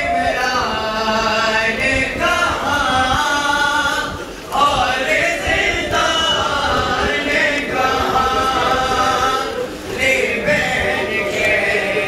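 Many voices chanting a mourning lament (noha) together in long sung phrases, with short breaks about four and ten seconds in, over the rumble of a packed crowd.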